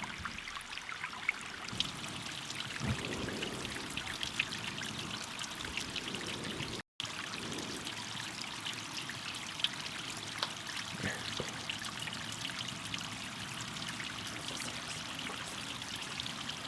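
Small waterfall trickling and splashing down over rock into a creek, a steady patter of water, with a brief break in the sound about seven seconds in.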